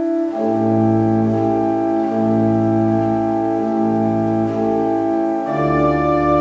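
Organ music playing slow, sustained chords. The chord changes about half a second in and again near the end, where a deeper bass note comes in.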